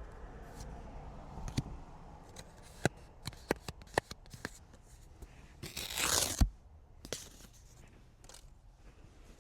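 Cards and their packaging being handled and opened: scattered light taps and crinkles, then a short tear about six seconds in that ends in a sharp tap.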